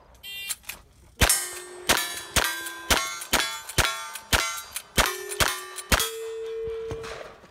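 A short shot-timer beep, then about ten rapid lever-action rifle shots roughly half a second apart, each followed by the ringing clang of a hit steel target. The last hit rings on for about a second.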